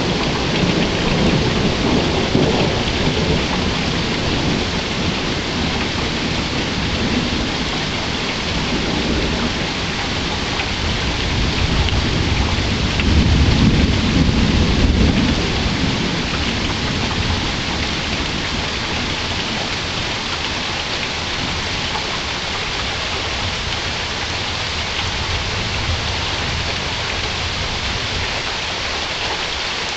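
Steady rain falling, with low rolling thunder: one rumble fading out at the start and a louder one about halfway through that dies away over a few seconds.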